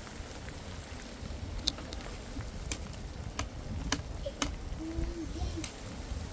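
Scattered sharp clicks, about eight in all, over a steady low rumble of wind buffeting the microphone.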